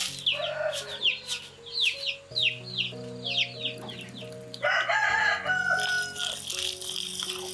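A rooster crows once, about five seconds in, after a rapid run of high, falling chirps at about two or three a second.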